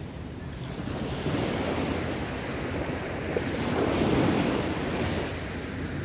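Small sea waves breaking and washing up a sand beach, the surf swelling about a second in and loudest around four seconds, with wind rumbling on the microphone.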